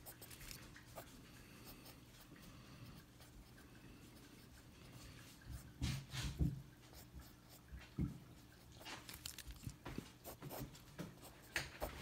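Faint scratching of a pencil sketching on paper, with a few soft knocks about halfway through.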